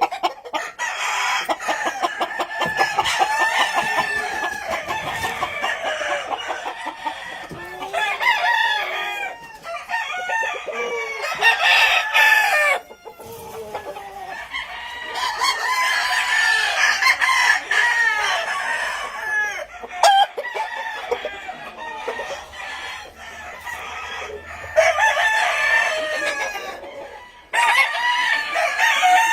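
A flock of gamefowl roosters crowing over one another, many calls overlapping, with clucking mixed in. The chorus breaks off abruptly a few times and starts again.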